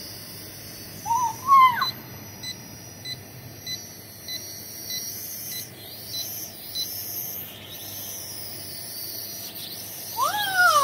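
Small quadcopter drone whirring in flight, its motor pitch rising and falling midway. A run of evenly spaced short high beeps sounds a few seconds in, and a brief rising pitched call comes about a second in.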